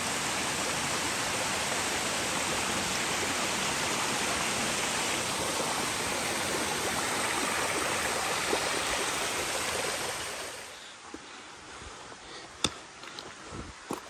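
A small mountain cascade rushing and splashing down between boulders, a steady hiss that fades away about ten and a half seconds in. A few sharp clicks follow near the end.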